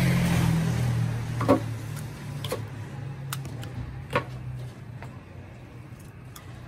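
A handful of sharp clicks and knocks, a second or so apart, from cooked goat head being broken apart by hand over a ceramic bowl. A low motor hum dies away about two-thirds of the way through.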